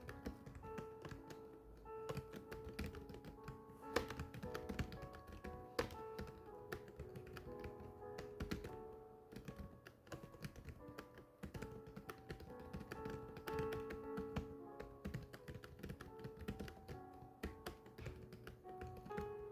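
Rapid, irregular key clicks of someone typing text on a keyboard, over soft background music with held notes.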